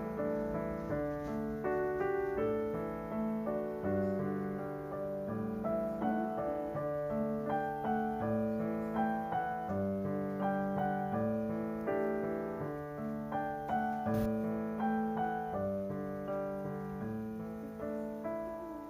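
Background piano music: a gentle melody of evenly paced notes over a repeating lower accompaniment.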